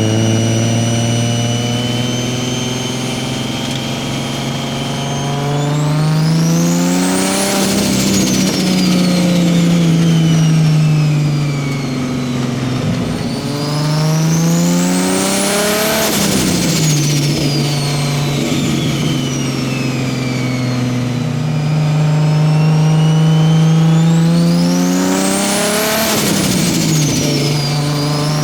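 Nissan Skyline R33's turbocharged straight-six engine revving up three times, a turbo whine climbing with each rev and then spooling down slowly as the revs fall. A rough, chattering turbo flutter sounds around each peak as the throttle comes off.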